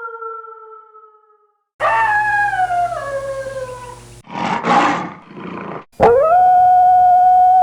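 Wolves howling: one howl falls and fades away, another starts about two seconds in and drops in steps. A couple of short breathy noisy sounds follow, then a new howl rises quickly and holds one long steady note near the end.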